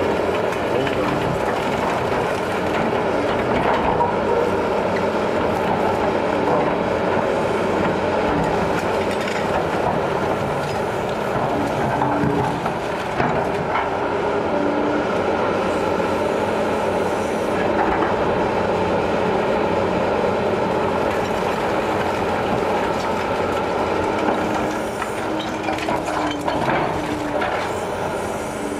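Liebherr 944 C hydraulic excavator's diesel engine and hydraulics running steadily under load while its bucket breaks up and drags brick and concrete rubble, with scattered cracks and crashes of falling masonry.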